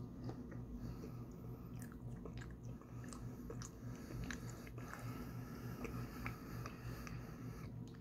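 Chewing a mouthful of taro fudge: scattered small, wet mouth clicks and smacks over a steady low hum.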